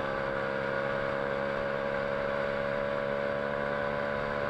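Single-cylinder four-stroke engine of a 125 cc pitbike running hard at high revs, with the pitch creeping slightly upward. It has an open, unsilenced exhaust: the header runs straight from the cylinder head into a small end can with no baffling, so it is very loud.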